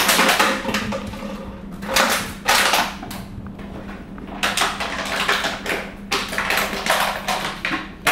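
Empty plastic water bottle crackling and clattering as a puppy bites, carries and bats it about, in irregular bursts with short pauses between.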